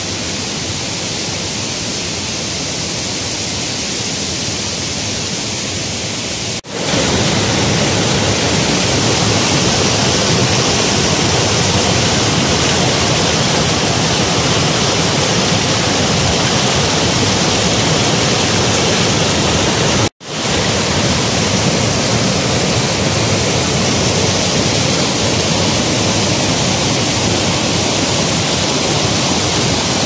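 Waterfall in flood: muddy floodwater rushing over and between rock ledges in a loud, steady, even rush. It breaks off for an instant about seven seconds in and comes back louder, then breaks off briefly again about twenty seconds in.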